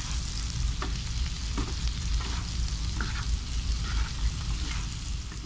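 Whole shrimp sizzling in garlic butter in a nonstick frying pan while two spatulas stir and toss them, the spatulas scraping and knocking against the pan about once a second.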